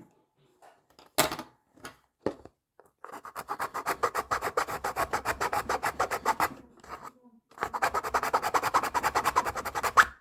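A hand file rasping quickly back and forth to widen a hole cut in a carry case, in two long runs of fast, even strokes with a short pause between them. A few separate knocks come before the filing starts.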